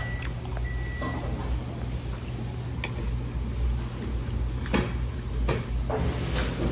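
Steady low room hum with a handful of short, soft clicks and knocks from eating sushi with chopsticks.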